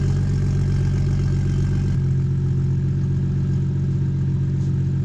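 BMW 235i's turbocharged straight-six idling steadily through a freshly fitted catless downpipe, a low, even drone. The tone changes abruptly about two seconds in.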